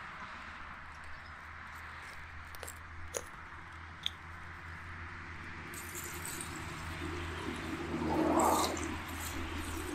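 Water pouring from a plastic watering can onto the soil and wood-chip mulch at the base of a shrub, beginning about six seconds in after a few short handling clicks. A louder rumbling swell comes near the end.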